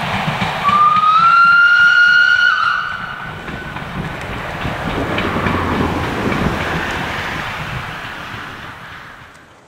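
Ivatt class 2 steam locomotive 46512 sounding its whistle once for about two seconds, starting a little under a second in, over the noise of the working locomotive and train. The train noise then fades away toward the end.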